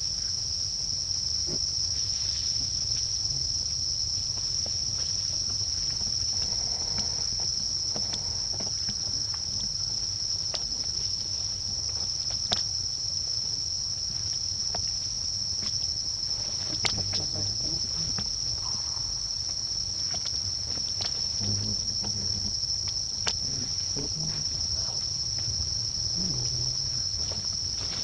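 Insects buzzing in one steady, unbroken high-pitched drone, with scattered faint clicks and rustles.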